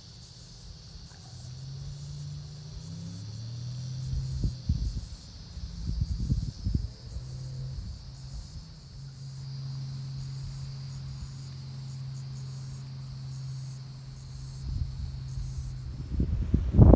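Insects chirring in a steady high pulse, about two a second, over a low steady hum like a distant motor, with a few low thumps a few seconds in.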